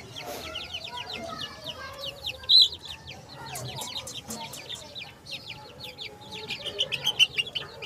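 Chickens: young chicks give a dense run of quick, high peeps as they are held and set down among adult hens, with clucking underneath. One loud, shrill cry comes about two and a half seconds in.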